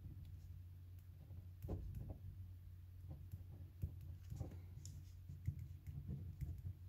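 Pen writing on paper: faint scratches and small taps as each stroke and symbol is put down, over a low steady hum.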